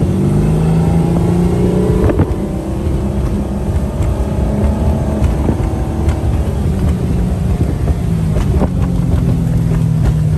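2003 Malibu Sunsetter wake boat's V8 inboard engine running underway at a steady pitch. It eases down slightly past the middle and comes back up, over a steady rushing noise. The owner says it sounds really good and is running just perfect.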